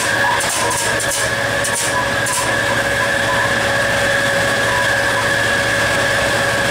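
EMD two-stroke diesel engine of a GT36HCW locomotive running while it pulls the train at speed, heard from the cab. There is a steady hum and a steady whine over the rumble of the train, with a few short hisses in the first couple of seconds.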